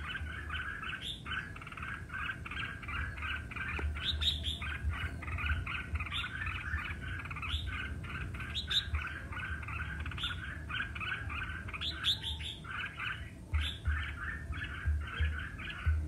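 Red-whiskered bulbul song: a fast, unbroken run of short chirps, with now and then a higher upswept note.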